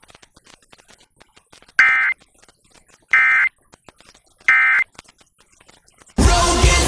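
Emergency Alert System End of Message: three short bursts of SAME digital data tones about a second apart, marking the end of the alert. Music starts abruptly near the end.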